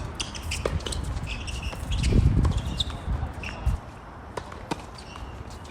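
Wind buffeting the microphone with a low rumble, strongest about two seconds in. Over it come scattered sharp knocks of tennis balls being hit and bouncing on the hard court, and a few short high squeaks.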